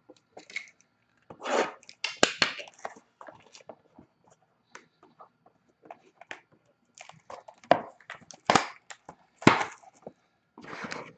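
Plastic shrink wrap being cut and torn off a sealed trading-card box, crinkling in irregular bursts, with clicks and knocks as the box is handled and opened.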